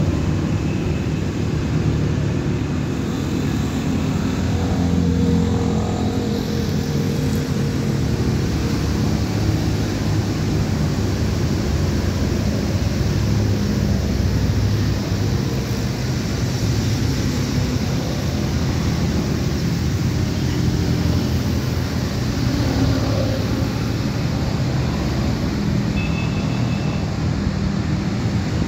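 Steady low rumble and hum of motor traffic.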